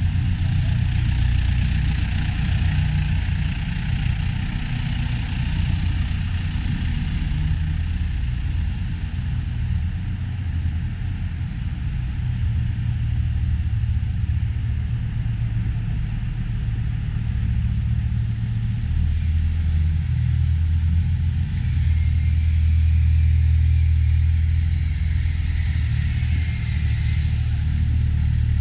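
Engines of pulling tractors and trucks running at low speed while they are brought in to be weighed, a steady low rumble that grows louder for a while in the second half.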